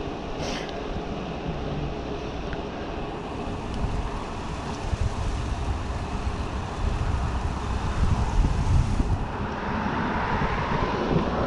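Wind rushing over the microphone of a rider on a moving bicycle, a steady low rumbling noise that grows louder about two-thirds of the way through.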